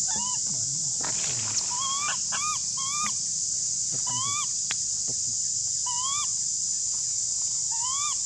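Infant long-tailed macaque giving about eight short, chirpy coo calls that rise and fall in pitch, some in quick runs of two or three. Under them is a steady high-pitched drone of forest insects.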